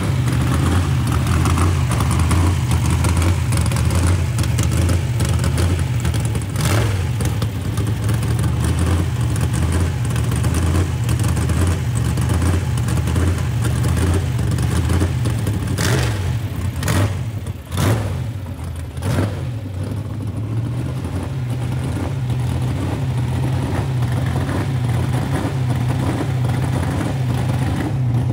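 A motor vehicle engine running steadily at a constant pitch. A few sharp cracks break in, one about a quarter of the way through and a cluster of three or four about two-thirds of the way through.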